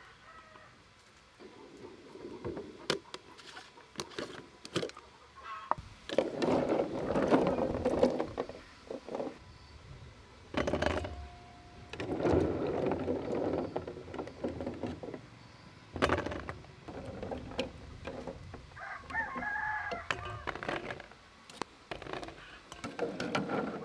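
A rooster crowing several times, each call a second or two long. Between the calls come short clicks and knocks from a plastic jar and from jujube fruit being handled on a metal tray.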